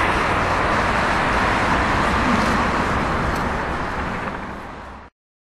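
Road and engine noise heard from inside a moving vehicle: a steady rushing hum that fades and then cuts off abruptly about five seconds in.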